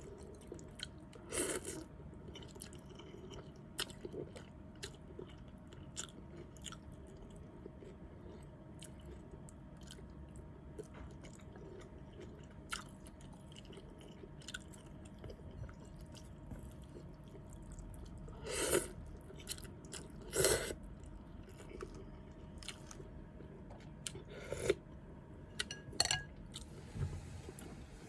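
Close-miked eating of noodle soup: chewing with many soft mouth clicks, and a few louder, longer sounds, twice in a row past the middle and once more near the end.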